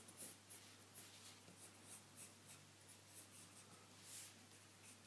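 Pencil scratching across drawing paper in quick, faint sketching strokes, with one louder stroke about four seconds in.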